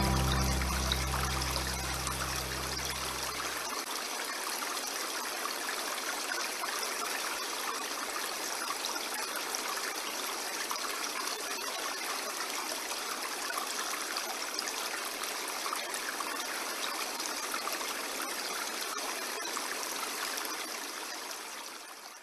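Steady rushing and trickling of a flowing stream, under the last held chord of the song's music, which stops about four seconds in. The water then runs on alone and fades out near the end.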